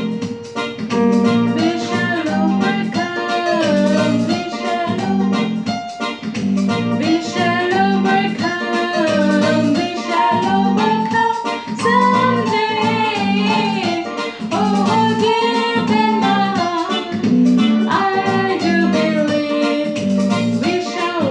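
A woman singing a melody over an electronic keyboard accompaniment that keeps a steady rhythmic pulse.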